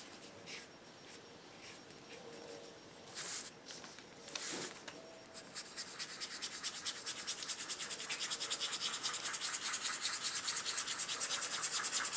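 Small stiff flat paintbrush dry-brushing paint onto a painted surface with a scrubbing, circular action: a fast, even, scratchy rubbing that starts about halfway in and grows louder. Before it come only a couple of soft rustles.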